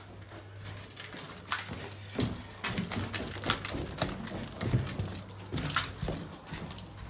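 Footsteps hurrying down a carpeted staircase. Uneven thuds and knocks, about two or three a second, begin about a second and a half in.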